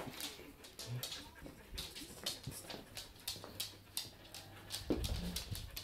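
Small dogs moving about close by, their claws clicking irregularly on a wooden floor, several clicks a second.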